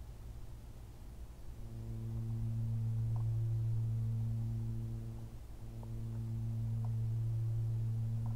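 A low, steady humming tone with a few fainter tones above it. It comes in about one and a half seconds in and dips briefly about halfway.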